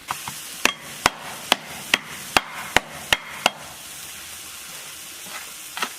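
Kitchen cleaver chopping on a cutting board: about eight sharp, evenly spaced strokes, roughly two and a half a second, then a pause and one more stroke near the end.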